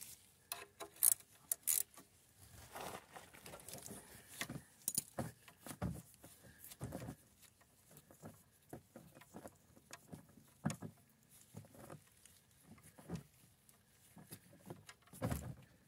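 A wrench clicking and tapping on the oil drain plug of a Kubota BX25's diesel engine oil pan as the plug is loosened: scattered light metal clicks at uneven intervals.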